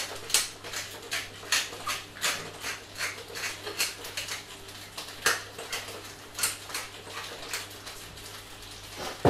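Hand-twisted salt mill grinding salt over a pan of frying peppers: a long run of short, gritty crunching clicks, about three a second and slightly uneven.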